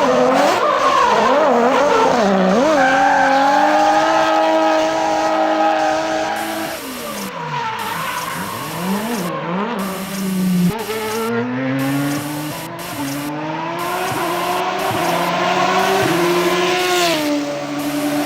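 Dubbed-in car sound effects: engine and tyre-squeal noises whose pitch wavers up and down, holds steady for a few seconds, then climbs in steps and drops back near the end, like an engine revving through the gears.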